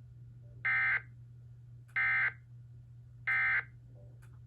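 Emergency Alert System SAME end-of-message data signal: three identical short bursts of buzzy digital data tones, each about a third of a second long and about 1.3 seconds apart. It marks the end of the alert. A steady low hum runs underneath.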